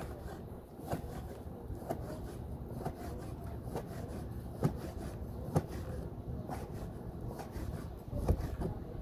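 Steel kitchen knife cutting through goat skin and tapping down onto a plastic cutting board about once a second, over a low steady rumble.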